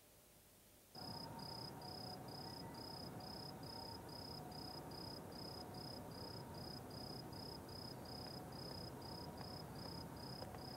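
Crickets chirping, a high chirp repeating evenly about three times a second over a faint hiss, starting about a second in after silence.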